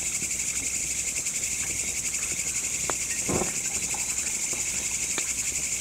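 A night chorus of crickets: a steady, rapid pulsing trill with no pause, and one brief soft knock about three seconds in.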